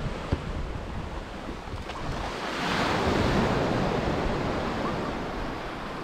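Sea waves breaking on the shore: a wash of surf that swells about two and a half seconds in and slowly fades, with wind buffeting the microphone throughout.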